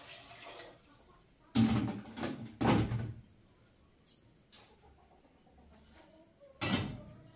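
Metal kitchenware being handled: a stainless steel pot and metal bowls knocking and clanking against each other and the table, three knocks close together about a second and a half in and another near the end.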